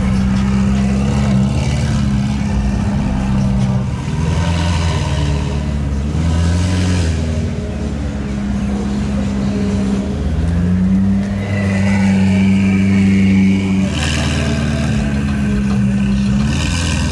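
Supercar engine running and revving. The pitch holds steady for a few seconds at a time, then slides up or down, with a smooth climb in revs about ten seconds in.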